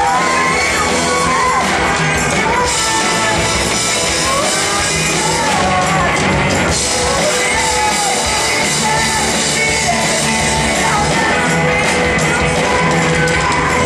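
Live rock band playing loud: drums, electric guitars and bass, with a voice singing over them.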